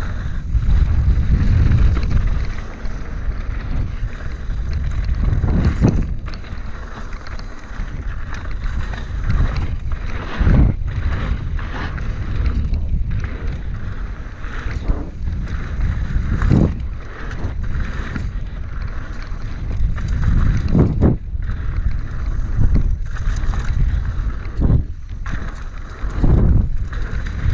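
Wind roaring over a GoPro Hero 5 Black's microphone as a mountain bike rolls down a dusty dirt trail at speed, with tyre noise on the dirt and a dozen or so sharp knocks and rattles from the bike over bumps and landings.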